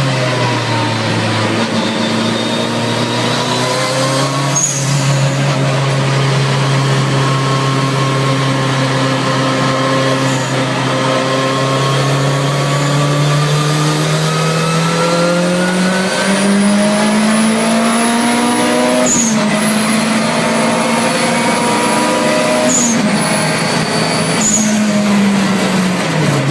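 Turbocharged 16-valve four-cylinder engine of a mid-engine VW Golf Mk2 race car running under way. The pitch slowly falls and then rises for several seconds, before three sudden drops that sound like gear changes in the last third. A faint high whistle runs through the second half.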